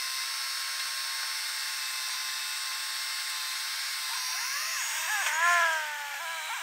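Flatbed tow truck's hydraulic bed system whining steadily as the loaded tilted bed is lowered. About four seconds in, the pitch wavers up and down and grows louder for a second or two, then settles back.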